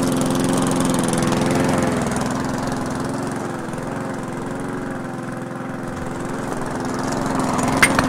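Husqvarna walk-behind lawn mower's small engine running steadily as the mower is pushed across grass. Its pitch shifts slightly about two seconds in, and it grows louder near the end as it comes closer, with a sharp click just before the end.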